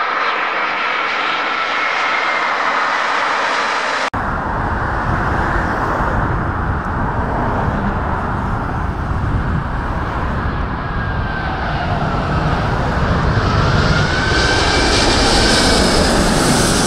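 Boeing 787 jet engines running with a slowly falling whine as the airliner rolls along the runway after touchdown. About four seconds in it cuts to a four-engined Airbus A380 on low approach, its deep rumble and engine whine growing louder as it passes close overhead.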